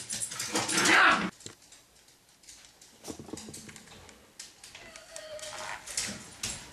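A dog whimpering and yelping, loudest in the first second, then fainter and more broken.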